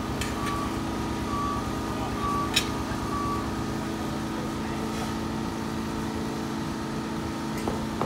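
A vehicle's reversing alarm beeping about once a second over a steady engine hum, the beeps stopping about three and a half seconds in; a single sharp click partway through.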